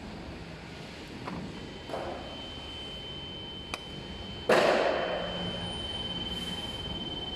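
Hand-tool work on an electric scooter's metal stem tube: a sharp click, then a loud knock about halfway through that rings off over a second, with a steady high whine in the background.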